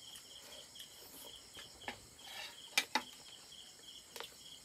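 Crickets chirping in a steady pulsing trill, with a few short sharp clicks over it, the loudest a quick pair near the middle.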